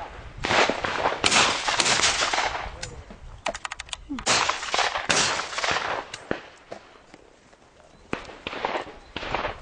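Repeated shotgun shots, several in the first six seconds, each followed by a trailing echo, with a quick run of sharp cracks in the middle and fewer shots near the end.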